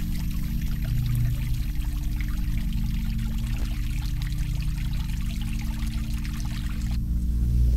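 Water trickling and splashing as it falls off a rock ledge into a garden pond, over a low steady hum. The splashing stops about seven seconds in.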